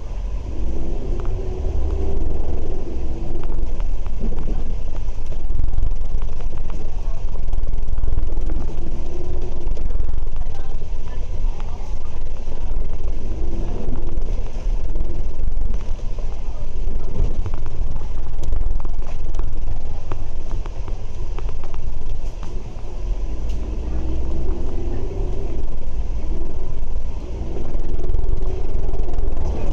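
Heavy low rumble of a diesel bus engine heard from inside the bus. The engine and transmission whine rise in pitch several times as the bus pulls away and accelerates in stop-start city traffic.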